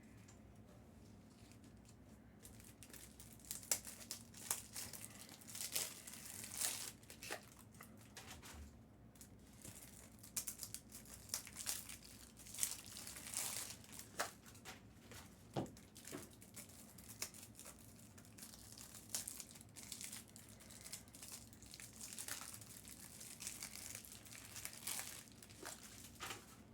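Foil trading-card pack wrappers crinkling and tearing in irregular rustling bursts as packs are ripped open and handled, starting a couple of seconds in.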